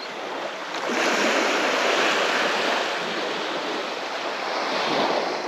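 Small waves breaking and washing up a sandy beach on a calm sea: a steady rush that swells about a second in and again near the end.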